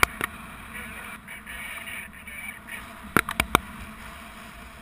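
Wind rushing over a helmet- or body-mounted GoPro's microphone in paraglider flight, a steady rush. Sharp snaps or knocks cut through it twice right at the start and three times in quick succession a little past three seconds in.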